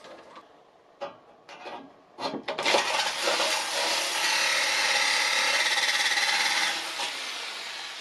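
Electric jigsaw cutting through the thin stainless steel side of an oven pan: a few short knocks, then about four seconds of steady loud sawing with a high buzzing tone, which drops off and trails away near the end.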